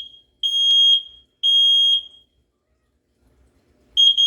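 Kidde combination smoke and carbon monoxide alarm running its push-button self-test. Two loud, high-pitched long beeps finish the three-beep fire alarm pattern. After a pause of about two seconds, the quick short beeps of the carbon monoxide alarm pattern start near the end.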